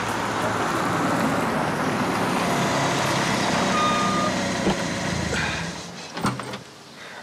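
Lada car driving up and stopping, with steady engine and tyre noise that dies away about six seconds in. A couple of knocks from the car door follow near the end.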